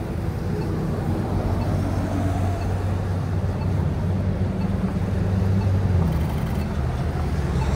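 Street traffic: a steady low engine hum from vehicles running at the intersection, shifting slightly in pitch near the end.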